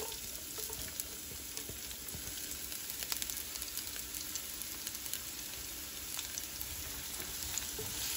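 Chopped onions freshly added to hot olive oil, sizzling steadily with fine crackles as they start to fry.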